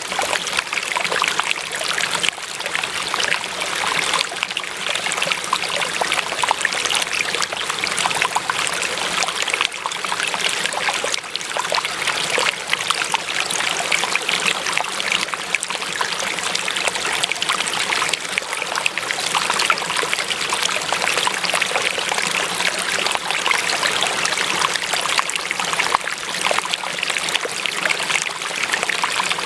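Water in a small stream running and trickling steadily, a dense, constant burble.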